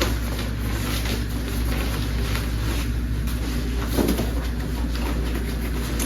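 A steady low hum with faint rustling and light clicks as soft gear is handled.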